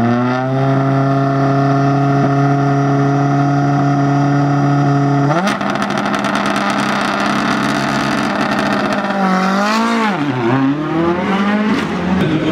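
Ford Fiesta R5 rally car's turbocharged four-cylinder engine revved up and held at steady high revs with the car standing still. About five seconds in it spikes higher and a burst of crackling follows, then the revs dip and rise quickly a couple of times near the end.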